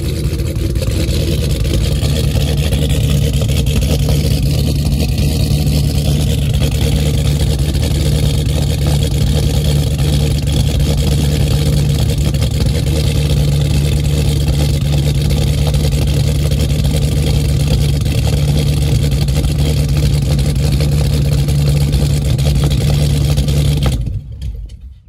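Whipple-supercharged Hellcat 6.2-litre Hemi V8 idling steadily on stock exhaust, the motor still cold less than a minute after start-up. About 24 seconds in the engine shuts off and the sound dies away within a second.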